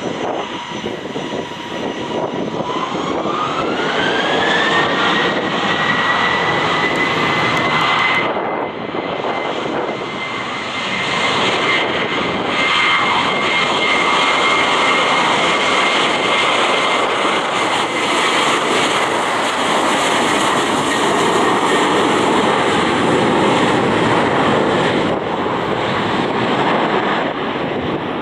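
Boeing 737-800's CFM56-7B turbofan engines spooling up: a whine climbs in pitch a few seconds in, then the engines run loud and steady at high power.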